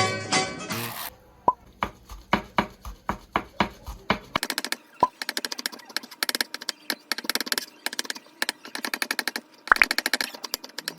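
Food-prep sounds: sharp taps and knocks, a few a second at first, then a fast, steady run of clicks for about five seconds before slowing again.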